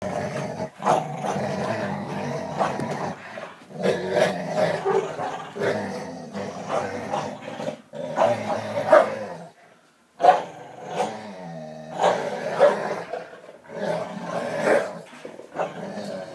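Dogs play-growling in a tug-of-war over a toy, the pit bull among them: a rough, nearly unbroken growl that swells and eases in quick surges. It breaks off briefly about ten seconds in and returns with a drawn-out sound that falls in pitch.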